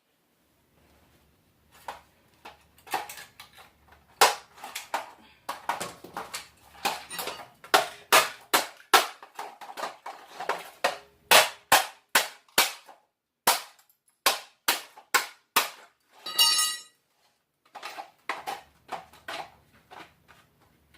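Pry bar working open a small appliance's casing: a rapid run of sharp cracks and knocks, about two a second, with a short pause near the end before more.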